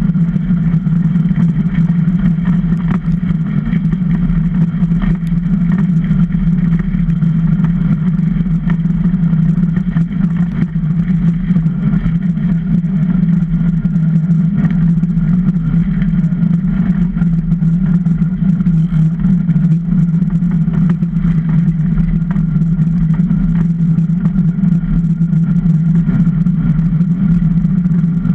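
Runners of a Super DN iceboat rumbling over clear lake ice under sail, carried through the wooden hull as a loud, steady low drone, with a few faint clicks.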